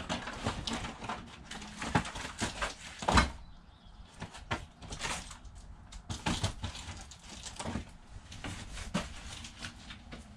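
Boxed merchandise being handled and sorted: a run of knocks, clatters and rustles, the loudest knock about three seconds in.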